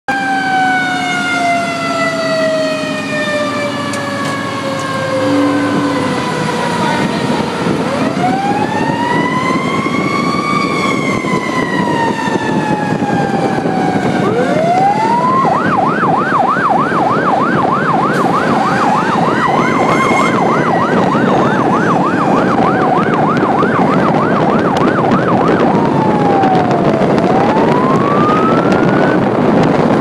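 Fire truck siren heard from inside the cab over engine and road noise. A long wail falls slowly in pitch, rises and falls again, then switches to a fast yelp for about ten seconds before a wail rises again near the end.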